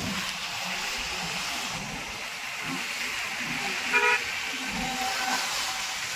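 Steady road and tyre noise of a car driving on a wet road, with one short vehicle horn toot about four seconds in.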